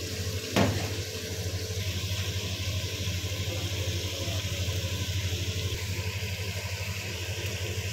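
Hot oil sizzling steadily in a steel pot on a gas burner, over a constant low hum, with a single sharp knock a little after half a second in.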